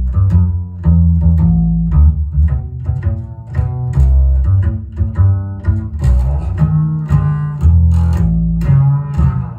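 Jazz recording led by an upright double bass played pizzicato, its deep plucked notes walking along with higher accompaniment, played back over a hi-fi loudspeaker system.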